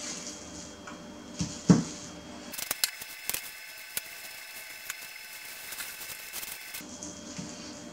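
Plastic cling film crinkling and rustling as a raw pork knuckle is handled and wrapped on a wooden cutting board, with a sharp knock on the board about two seconds in.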